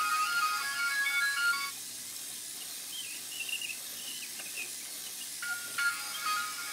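Tinny electronic melody of plain beeping notes, like a ringtone. It breaks off about two seconds in, leaving only a faint hiss and a few soft chirps, and starts again near the end.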